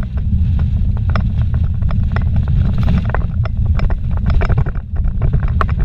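Car driving fast on a rough dirt road, heard from inside the cabin: a steady low rumble of tyres and engine with frequent sharp clicks and rattles from the road surface.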